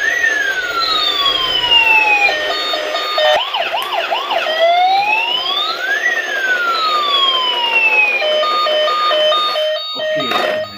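Battery-powered toy ambulance's electronic siren sounding, cycling through a slow rising-and-falling wail, a two-tone hi-lo pattern and, about three and a half seconds in, a burst of quick yelping chirps.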